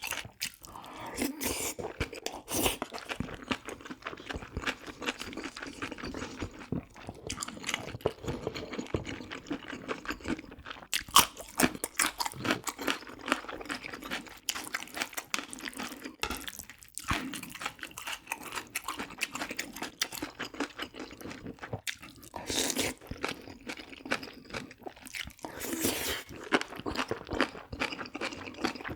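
Close-up eating sounds: a person chewing and biting spicy braised pork ribs with bean sprouts, with wet smacking and crunching bites.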